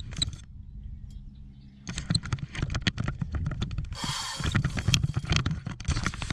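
Fishing reel clicking rapidly as a hooked striped bass is fought, with a low hum at first and a short hiss about four seconds in.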